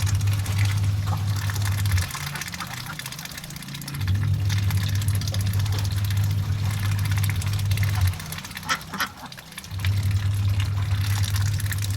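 Penned domestic ducks quacking, with short calls scattered through, most bunched near the end. Under them runs a steady low hum that cuts out twice for a couple of seconds and comes back.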